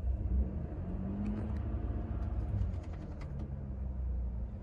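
2020 Chevrolet Colorado's 3.6-litre V6 running in park, heard from the driver's seat, idling and then lightly revved, rising to about 2000 rpm near the end.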